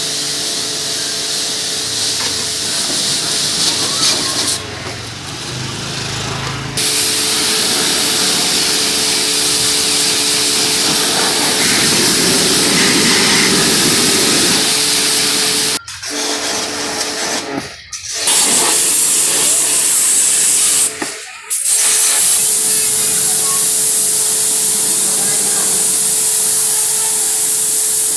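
Pressure-washer spray jet hissing steadily on an air conditioner, with a steady motor hum under it; the spray cuts out briefly three times in the second half.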